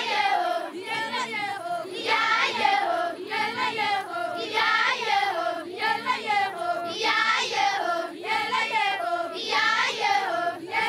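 A group of Maasai women singing together in high voices, a chant-like song of short phrases that repeat about once a second.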